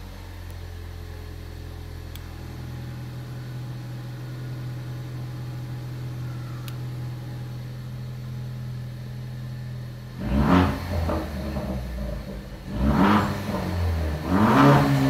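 Ford Focus ST's turbocharged four-cylinder engine idling steadily through a straight-piped exhaust with its resonator deleted and a QTP electric cutout fitted, heard from inside the cabin. About ten seconds in the throttle is blipped three times in quick succession, the last rev the loudest.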